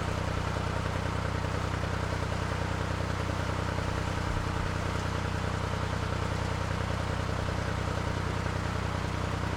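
Narrowboat's diesel engine running steadily under way, a constant low drone with an even throb and no change in revs.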